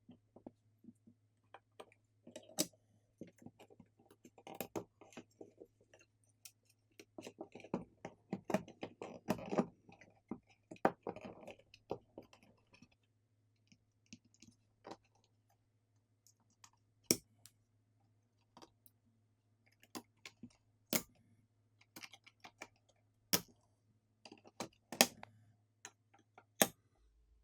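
Mini PC parts being handled and fitted back together: scattered sharp clicks and taps of small plastic and metal pieces, with a busier stretch of handling about seven to twelve seconds in, over a faint steady low hum.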